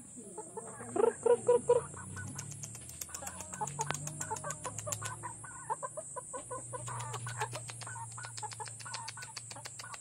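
Chickens clucking, with a run of four loud clucks about a second in and softer clucks and short calls after. A steady high-pitched hiss runs underneath.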